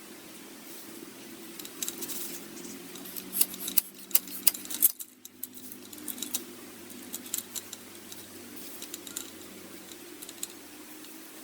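Irregular light metallic clicks and clinks over a steady low hum, densest in the first half.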